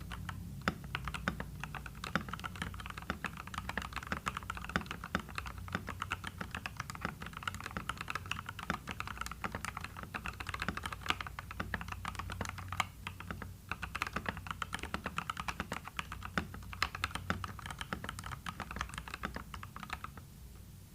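Typing on a mechanical keyboard with slightly lubed Gateron Pro Yellow linear switches, in a 1st Player Uni-Q TKL case dampened with foam and a band-aid mod. It is a rapid, continuous run of keystrokes that stops shortly before the end.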